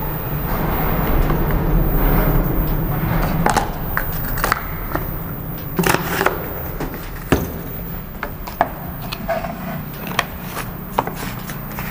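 A plastic scoop scraping in whey protein powder in its plastic tub, then scattered sharp clicks and knocks as the tub's lid is pressed shut and the lid of a plastic shaker bottle is fitted.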